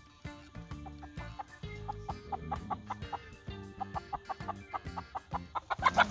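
Chickens clucking, with the calls getting louder near the end.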